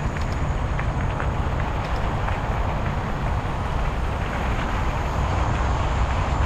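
Bicycle rolling along a gravel and dirt trail: a steady low rumble of tyres and wind on the microphone, with small scattered clicks from loose stones.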